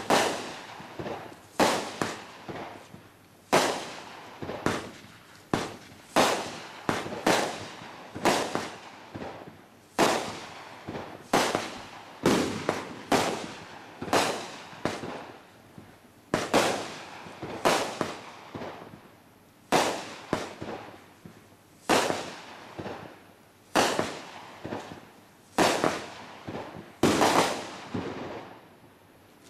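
Winda 'Metal Dino' multi-shot firework cake firing a steady string of shots, about one or two a second. Each shot is a sharp bang followed by a short fading hiss.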